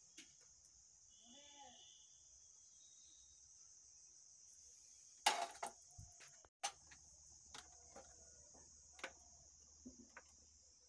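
Crickets chirping steadily in the background, with a short faint call about a second and a half in. About five seconds in comes a loud knock and clatter, then scattered light clicks, as tools are handled on a wooden workbench during soldering.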